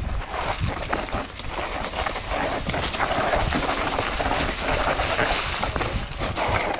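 Mountain bike riding over a rough dirt singletrack: tyre noise with frequent clicks, knocks and rattles from the bike, over a constant low rumble.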